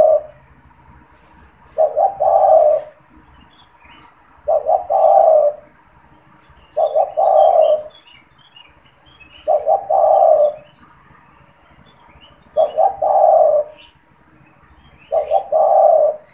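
Male spotted dove cooing: each phrase is a few quick short notes running into a longer coo, repeated about every two and a half seconds. Faint chirps of small birds sit behind it.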